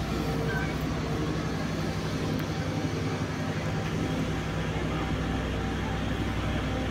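Large diesel engine of a Cometto girder transporter running steadily with a low, even drone while the transporter creeps along carrying a bridge-girder launcher.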